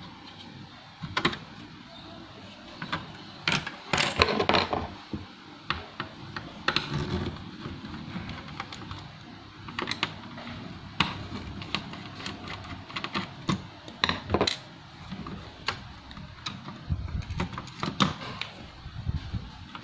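Irregular clicking and tapping on a laptop, like keys and buttons being pressed, with a few louder knocks.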